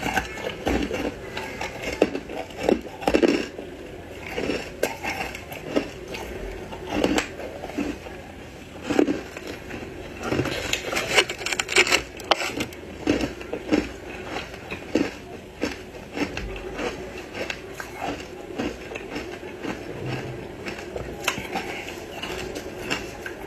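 Ice coated in matcha powder being bitten and chewed: a continuous run of irregular crunches and cracks, thickest about halfway through.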